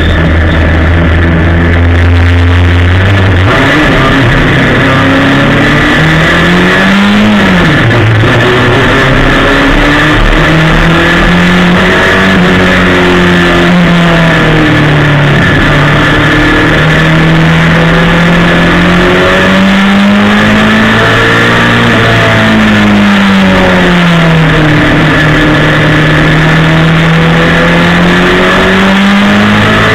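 Ministock race car's engine heard from on board, holding a steady low note for the first few seconds, then rising and falling in pitch again and again as the driver accelerates and lifts around the oval. A steady high whine runs through it.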